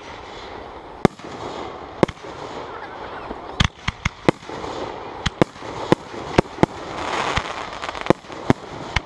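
Aerial firework shells going off: a dozen or more sharp bangs at irregular intervals, spaced a second or so apart at first and coming in quicker clusters from about three and a half seconds in, over a steady background hubbub.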